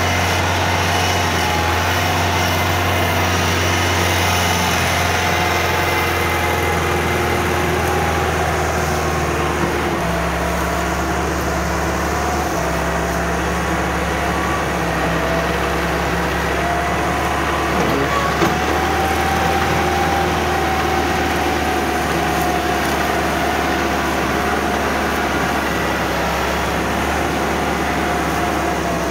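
Massey Ferguson 375 tractor's diesel engine running steadily under heavy load, pulling an overloaded trolley of sugarcane, with its low note shifting a couple of times.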